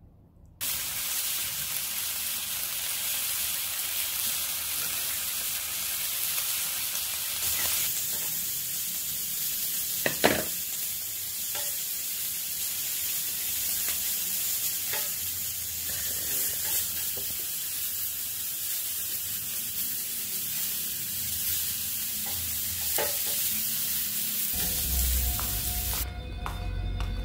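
Meat sizzling on a hot tabletop grill plate: a steady frying hiss, with one sharp click about ten seconds in. Music comes in near the end.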